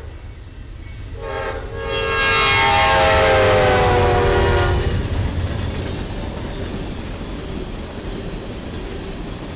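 Diesel freight locomotive horn sounding about a second in and held for several seconds, its pitch dropping as the locomotive passes at speed. Then the steady rumble and clickety-clack of tank cars rolling by on the rails.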